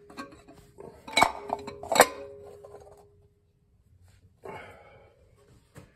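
Low/reverse piston of a 700R4 transmission clinking against the transmission case as it is lowered in and turned to line up its lug: two sharp metal clinks about one and two seconds in, with a ringing tone after them, then a softer scraping sound.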